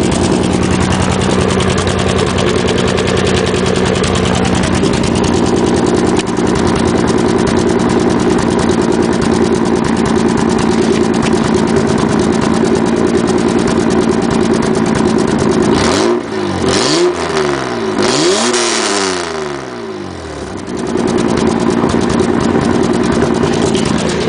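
1991 Nissan Maxima's 3.0 V6 running through a rusted-out, leaking exhaust. It idles steadily, is revved in a few quick blips about two-thirds of the way through, then drops back to idle.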